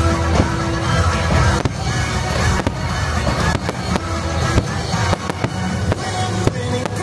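Aerial fireworks bursting, with several sharp bangs spread through, over loud show music from the park's speakers.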